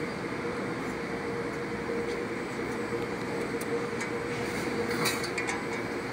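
Steady hum of an EKO all-electric servo press brake standing powered up in its run cycle, with a fixed mid-pitched tone. About four to five seconds in, a few light clicks and rattles as a thin sheet of metal is handled at the tooling.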